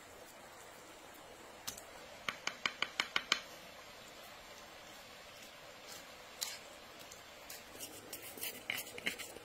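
A quick run of about seven sharp clicks, then scattered clicks and short scrapes, as a knife cuts and scrapes cooked food onto bread on a wooden board.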